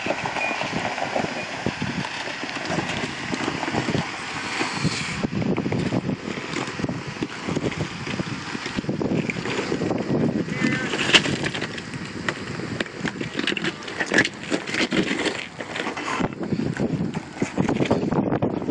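Jeep Wrangler TJ crawling slowly down a steep rock chute at close range, its engine running low under the crunch and scrape of its 33-inch tyres over loose rock and gravel, with many short crackles as stones shift under the wheels.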